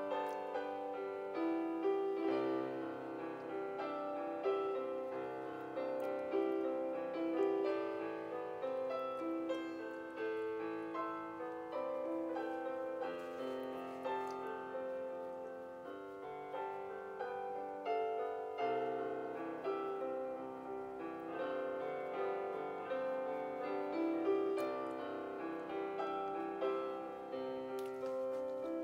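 Instrumental piano music, a steady flow of notes with no break.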